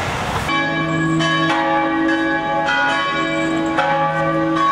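Church bells ringing: after a sudden cut from street noise about half a second in, strikes come roughly once a second over long, overlapping ringing tones.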